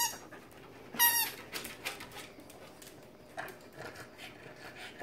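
A dog's squeaky rubber chicken toy squeaking in the dog's mouth: two short, high squeaks, one right at the start and one about a second in.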